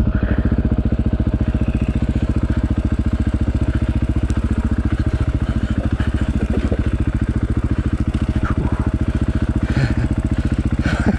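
Dirt bike engine idling steadily, a fast, even pulse with no revving.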